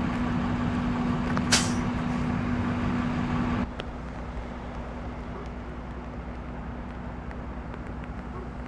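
A heavy vehicle's engine idling with a steady hum and low rumble, with one brief sharp hiss about a second and a half in. The sound cuts off abruptly a little over three seconds in, leaving a quieter steady background noise of rain and distant traffic.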